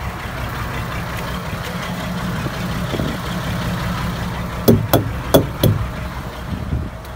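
Vehicle engine idling steadily, with four sharp clicks or knocks in quick succession about two-thirds of the way in.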